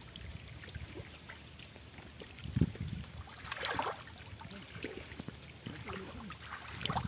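Muddy shallow water splashing and sloshing as hands grope through the mud for fish, with irregular low thuds and a louder splash about two and a half seconds in.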